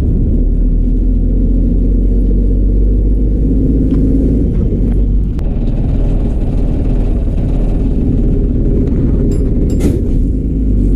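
A KSRTC bus running along the road, heard from on board: a steady low engine and road rumble. A few short clicks come near the end.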